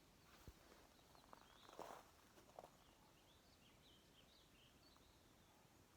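Near silence outdoors: faint rural quiet with a few soft rustles in the first three seconds and faint, high bird chirps between about three and five seconds in.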